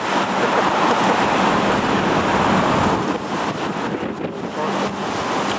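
Storm-force wind buffeting the microphone: a loud, steady rushing, strongest for the first three seconds or so.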